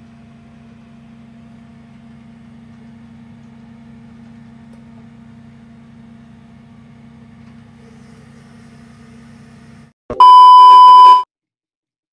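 A steady low background hum, then about ten seconds in a loud electronic beep lasting about a second that stops abruptly into silence.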